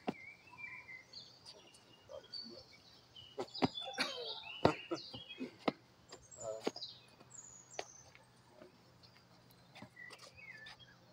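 Birds chirping and calling in short high notes, with scattered sharp taps and scuffs that are loudest in the middle.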